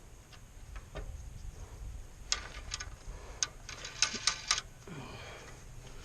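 Sharp clicks and small knocks of parts on a pressure washer being refitted by hand, coming in short clusters of a few clicks each.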